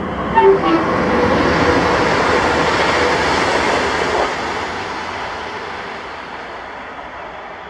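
Freight train passing on the line: a steady rumble and rush of wheels on rail that slowly fades away over the last few seconds. A few short tones sound in the first second.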